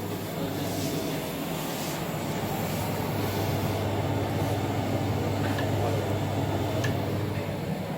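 Steady low hum of running laboratory equipment, rising a little about three seconds in and easing near the end, with a few faint clicks.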